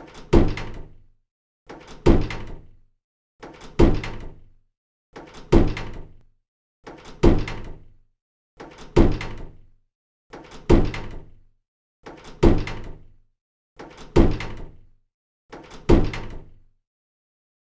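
A door being pushed shut, the same recording repeated ten times about every 1.75 seconds. Each time a soft click is followed by a heavy thud that dies away within about a second.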